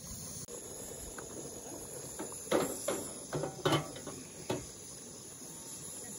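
Crickets chirping steadily in the night, with a handful of sharp knocks around the middle.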